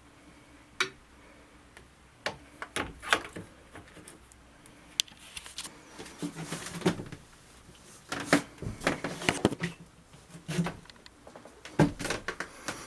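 Irregular metal clunks, clicks and scrapes as a heavy cylinder head is shifted on the block to line it up over the head gasket.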